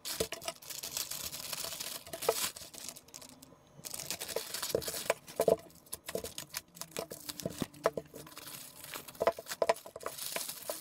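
Wrapping being handled: crinkling and tearing with many scattered sharp clicks and light knocks, easing off briefly about three seconds in.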